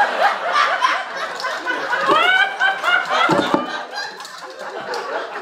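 Audience laughing at a joke, many voices overlapping in short bursts of laughter that ease off somewhat over the last second or so.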